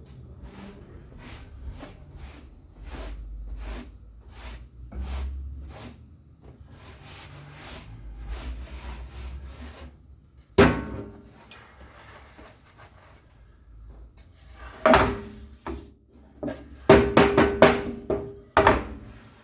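Sandpaper rubbed by hand over a walnut sign, sanding at 180 grit in quick back-and-forth strokes, about two a second. In the second half come a few loud wooden knocks and clatter.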